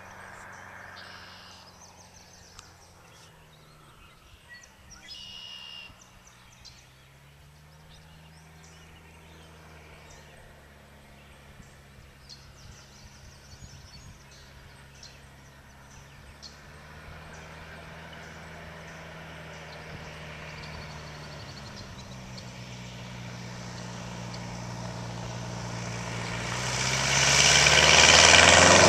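The 180 hp engine and pusher propeller of a Thurston Teal amphibian drone, faint and distant at first and growing steadily louder as the plane approaches. About 26 seconds in it becomes loud and rushing as the plane skims along the water close by on its hull. Small birds chirp a couple of times in the first six seconds.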